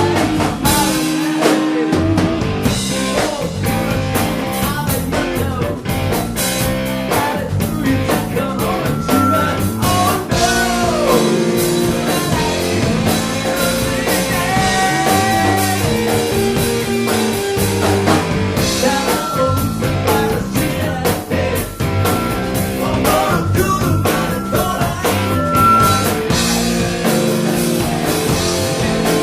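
A rock band playing live, with guitar and drums and a singing voice.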